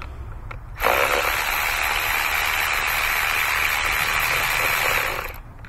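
Cordless electric ratchet running steadily for about four and a half seconds as it turns a spark plug socket, starting abruptly about a second in and stopping near the end.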